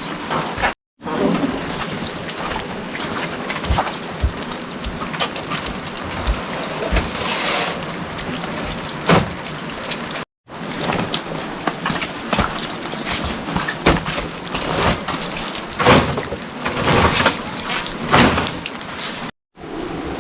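Steady heavy rain, with many sharp close drops and drips hitting hard surfaces. The sound cuts out for a moment about a second in, about halfway through and near the end.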